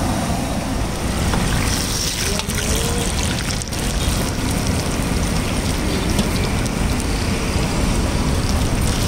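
Mirchi bajji (batter-coated green chillies) deep-frying in a large kadai of hot oil: a steady sizzling and bubbling, over a low rumble.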